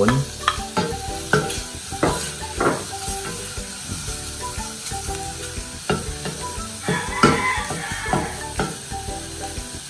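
Shrimp, onion and garlic sizzling in oil in a stainless steel saucepan, with a wooden spoon stirring and knocking irregularly against the pan.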